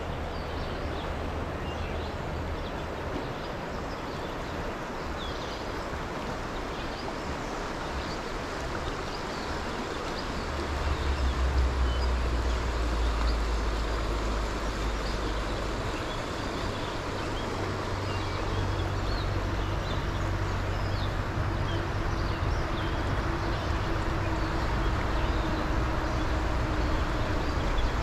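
Rushing water of a fast, rocky stream, a steady hiss with no let-up. A low rumble underneath swells for a few seconds about ten seconds in, then settles back.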